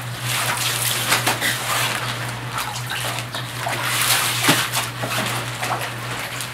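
Brined napa cabbage halves being rinsed by hand in basins of water: water sloshing and splashing as the halves are swished, lifted and shaken, over a steady low hum.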